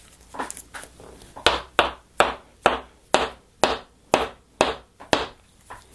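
A series of about ten sharp, evenly spaced taps, roughly two a second, with a few fainter ones just before.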